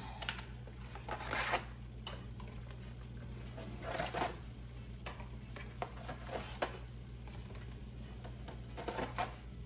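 Dry lasagna sheets being pulled from a cardboard box and slid into a pot of water: a few separate bursts of rustling and scraping, several seconds apart.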